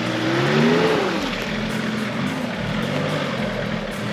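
4x4 vehicle's engine revving up for about a second and then easing off, its revs rising and falling unevenly after that as it drives off-road.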